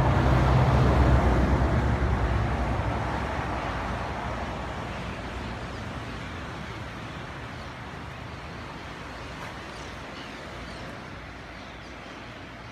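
A road vehicle passing close by: its rumble is loudest about a second in, then fades away steadily over the next several seconds into faint background noise.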